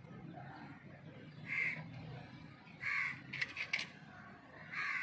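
A crow cawing three times, each caw short and harsh, with a few sharp clicks between the second and third.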